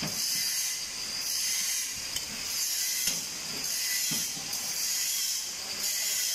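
Oxy-acetylene cutting torch hissing steadily while it cuts pipe. The hiss swells and fades about once a second, with faint low knocks underneath.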